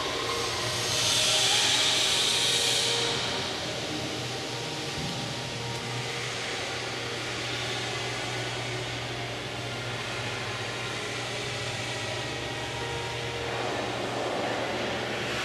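Steady mechanical hum with an even airy hiss, like a fan running. The hiss grows louder for about two seconds near the start, then settles.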